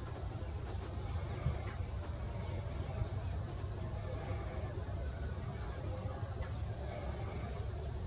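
Outdoor ambience: a steady low rumble under a continuous high-pitched insect buzz.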